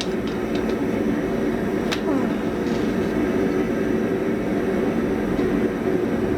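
Blacksmith's forge running with a steady, even rushing noise, with a couple of light metal clicks about two seconds in.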